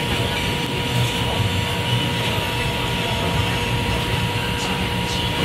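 Steady mechanical roar of fans and cooking equipment at a crab grill in a food court, with a steady hum over a low rumble.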